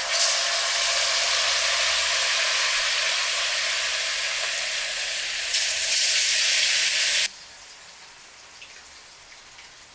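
Marinated chicken 65 pieces frying in hot oil: a loud, steady sizzle that cuts off suddenly about seven seconds in, leaving a faint sizzle.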